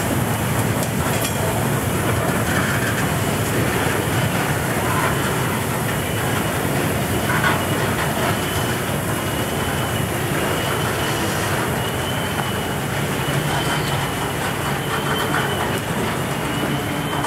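Rail-train flatcars loaded with long strings of welded rail rolling past close by. A steady rumble of wheels on track with occasional clicks, and from about six seconds in a thin, wavering high squeal.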